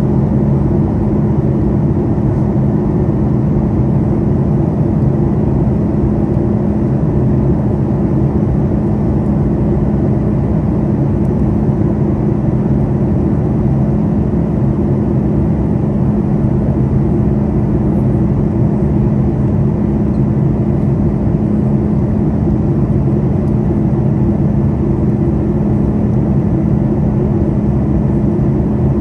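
Boeing 737 MAX 8's CFM LEAP-1B turbofan engines and airflow heard from inside the cabin over the wing in flight: a steady low drone with a constant hum.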